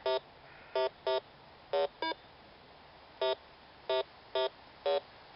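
Bounty Hunter 3300 metal detector giving short, mid-pitched beeps, about nine of them at uneven intervals, as it is swept over a buried metal target, which turns out to be a .22 cartridge.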